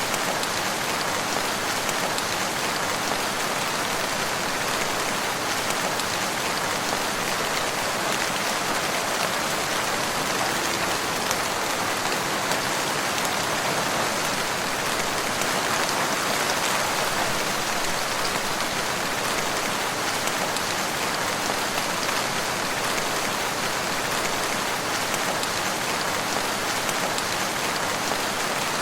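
Steady, even rainfall in woodland, a dense patter of drops with no pauses or thunder.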